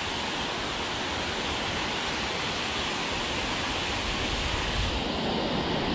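Steady rush of water pouring over a low dam spillway.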